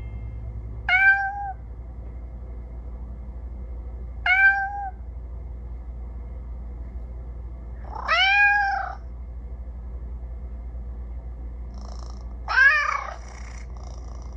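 Windows Phone 8 ringtone on a Nokia Lumia 1520 made of recorded cat meows: four meows a few seconds apart, the first two short and alike, the last two longer.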